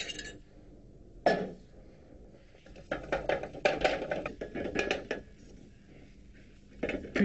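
Metal fork clinking and scraping against a frying pan as beaten eggs are stirred for an omelette, in a quick run of strokes in the middle, after a single sharp clink about a second in.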